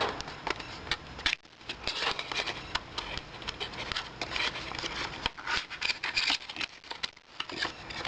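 Cardboard fragrance box being opened and handled, with irregular scraping, rustling and light clicks of packaging.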